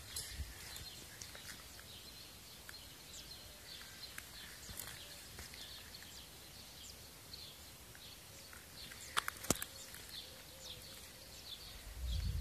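Faint outdoor ambience with many small, high bird chirps and tweets scattered throughout. A few sharp clicks come about nine seconds in, and a low rumble rises just before the end.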